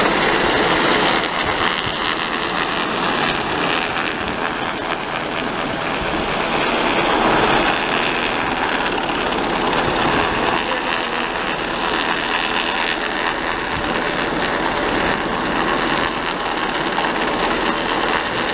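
US Coast Guard MH-60 Jayhawk helicopter hovering low overhead, its rotor and turbine engines making a loud, steady noise.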